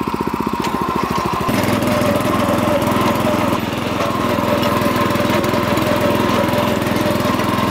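Small engine of a Hankook GSM-900G walk-behind power tiller running with the throttle raised while its rotary tines churn into grassy soil. The engine note changes about a second and a half in, then holds steady.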